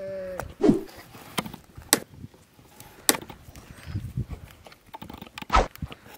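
Donkeys mating: a short pitched animal call breaks off just after the start, followed by a few sharp knocks and thuds of hooves and bodies. The loudest thuds come about half a second in and near the end.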